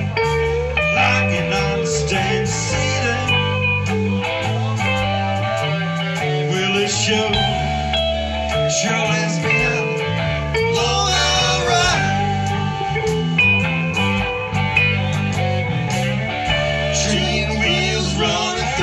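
Live band playing an instrumental blues-rock jam: electric bass, electric guitar and acoustic-electric guitar over drums, with one guitar holding long notes and bending them.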